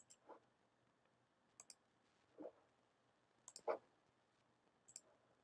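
Faint clicks of a computer mouse button, each a quick double click, four times about a second and a half apart, as lines are drawn in a CAD sketch. Three duller knocks fall between the clicks, the loudest about three-quarters of the way through.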